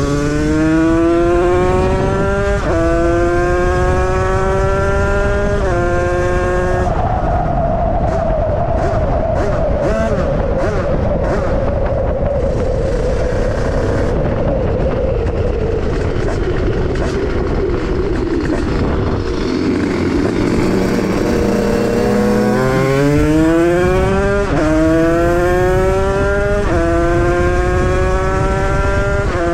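Beta RR50's Minarelli AM6 two-stroke, bored out to 77 cc with a Stage 6 kit and breathing through a KTM SX85 expansion-chamber exhaust, revving hard through the gears with two quick upshifts. It then holds high revs that slowly sag, drops back for a few seconds, and pulls through the gears again with three more upshifts near the end.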